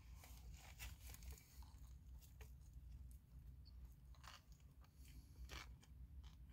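A person chewing a mouthful of taco close to the microphone, with irregular crisp crunches every second or so over a steady low rumble.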